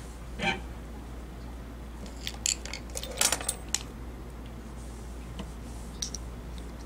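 Light clicks and short rustles as fabric is handled and fed into position under the presser foot of an industrial sewing machine, in a brief cluster a little past the middle, over a steady low hum.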